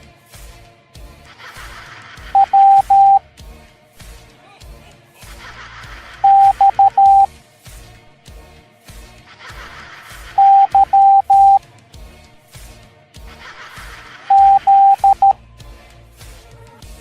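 Morse code letters sounded as mid-pitched beeps, short and long, all at one steady pitch. Four letters come about four seconds apart, over background music with a steady beat.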